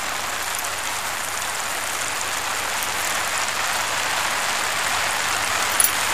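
Steady hiss of rain falling outside, with a brief small click near the end.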